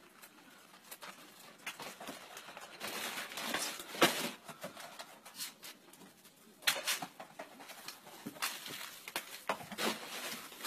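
Irregular rustling and scuffing as dogs trot up a gravel path carrying bags in their mouths, with scattered clicks; loudest about four seconds in and again near seven seconds.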